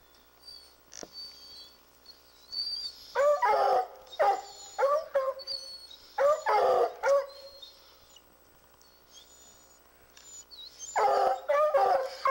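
Treeing Walker hounds baying at a treed mountain lion: loud drawn-out barks with falling ends, in a bout about three to five seconds in, another around six to seven seconds, and again near the end. Baying at the tree is the hounds' sign that the cat is treed.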